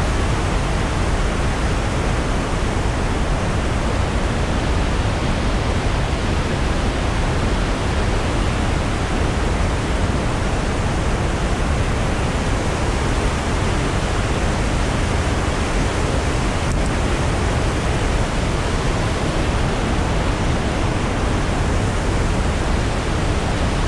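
Steady rushing of white-water rapids and waterfalls on the Iguazú River, an even, unbroken wash of water noise with a deep rumble beneath.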